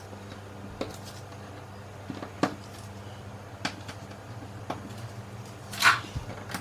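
Fridge magnets being pulled off a fridge door and handled: scattered sharp light clicks, with a short hiss a little before the end, over a steady low hum.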